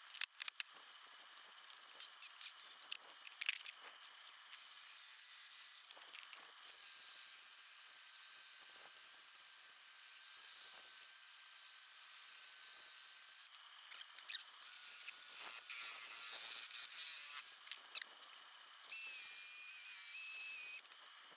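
Cordless drill driving a homemade wooden lathe, spinning a wooden wand blank while sandpaper is held against it: a high motor whine with sanding hiss. It runs in several spells of a few seconds with short stops, after a few clicks and knocks at the start.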